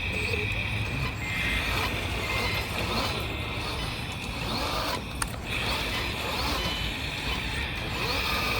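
Hydraulic pump and motors of a 1/14 scale RC Liebherr LR636 tracked loader whining as it works, easing off and coming back a few times, with a sharp click about five seconds in.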